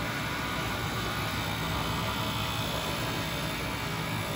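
Automatic microfiber towel length-sewing machine with overlock sewing heads running steadily, a continuous mechanical noise with a low hum under it.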